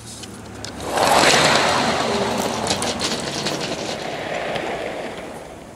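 Metal wheels of an unpowered two-bogie test chassis rolling along 5-inch gauge track after a hand push. A rolling rumble swells about a second in, carries a few light clicks, and fades gradually as the chassis coasts away.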